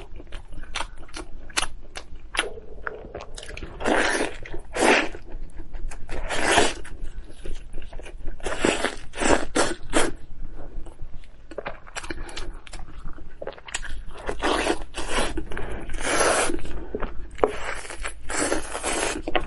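Close-miked eating of braised meat on the bone: biting, tearing and chewing with wet mouth noises. The noises come in bursts every second or two, with many small clicks in between.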